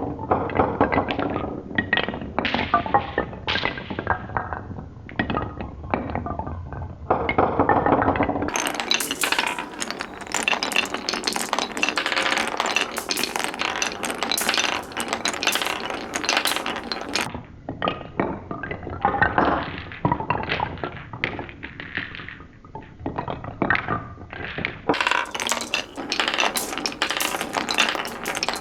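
Marbles rolling and clattering through a wooden Cuboro marble run, with a dense, irregular stream of clicks and knocks as they drop and strike the wooden blocks.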